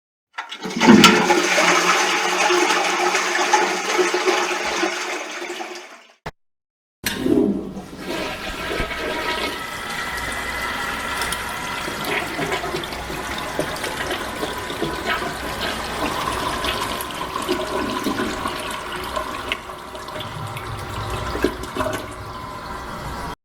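Toilet flushing: a loud rush of water that fades out after about six seconds, then after a second of silence a second, longer stretch of steadily running water.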